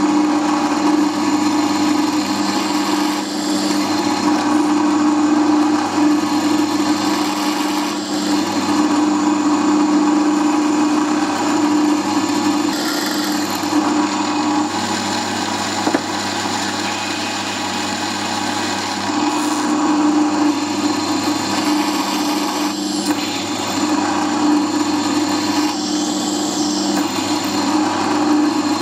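Milling machine spindle running steadily with a constant motor whine, drilling through a drill jig into a steel workpiece held in the vice.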